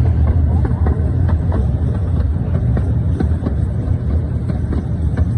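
Miniature steam train running along the track: a steady low rumble from the train with light, irregular clicks. The locomotive is chugging only lightly.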